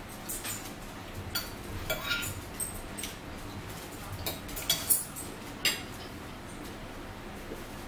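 Forks clinking and scraping on dinner plates while eating: irregular light clicks, with a few sharper ones about five seconds in, thinning out near the end.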